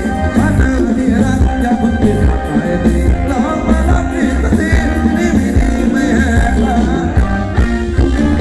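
Loud live luk thung dance music from a band, played through a PA system, with a singer and a steady bass beat.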